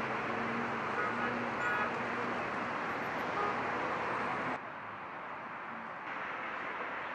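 Road traffic ambience with a steady engine hum and a few brief car-horn toots about a second in. About four and a half seconds in it cuts abruptly to quieter outdoor traffic noise.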